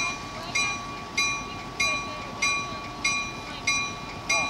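Locomotive bell ringing at a steady pace, struck about eight times, roughly every two-thirds of a second, with each strike ringing on into the next.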